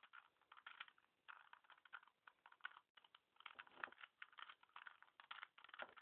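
Faint, rapid clicking and clacking of a 2x2 Rubik's cube's plastic layers being turned by hand, many quick turns in a row as a solving algorithm is performed.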